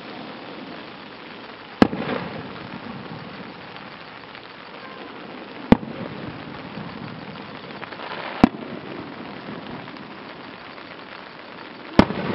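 Aerial firework shells bursting one at a time: four sharp bangs a few seconds apart, the first and third followed by a short crackling tail, over a steady background hiss.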